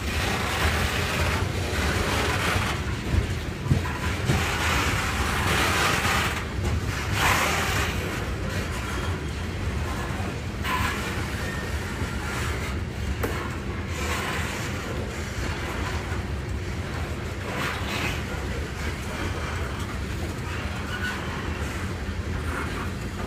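Loaded coal hopper cars of a long freight train rolling past: a steady rumble of steel wheels on the rails, with a few sharper knocks about four seconds in.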